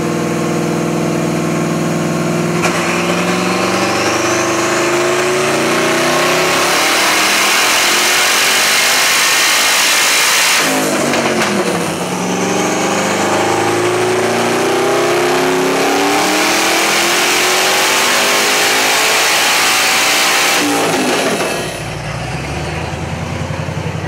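Twin-turbocharged aluminum 5.3 L LS V8 in a Lexus IS300 making a full-throttle dyno pull at about 17 psi of boost. The revs climb hard with a thin rising whistle as the turbos spool, dip briefly about ten seconds in, climb again, then drop back to idle near the end.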